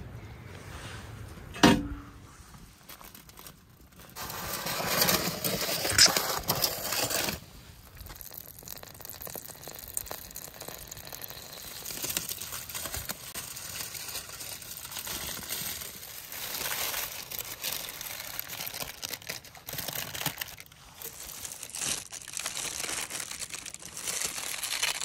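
A metal oven door clanks down with a short ring about two seconds in, followed by a few seconds of louder noise. Then aluminium foil and baking paper crinkle and rustle as they are pulled back from a roasted goose in a pan.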